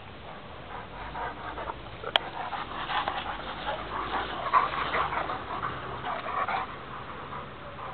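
Dogo Argentino dogs panting in uneven breathy puffs during rough play, with one sharp click about two seconds in.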